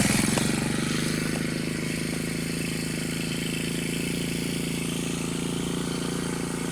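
Petrol brushcutter engine just after starting, easing down from a fast run over the first couple of seconds and then running at a steady idle.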